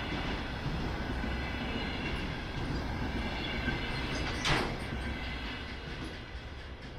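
Container freight train's wagons rolling past on the rails: a steady rumble with faint high steady tones, one short sharp knock about four and a half seconds in, and the sound growing quieter near the end.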